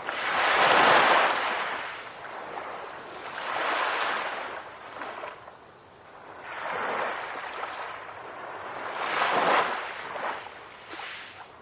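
Ocean waves washing onto a shore in about four rolling surges, each swelling and falling away over a few seconds; the first, about a second in, is the loudest.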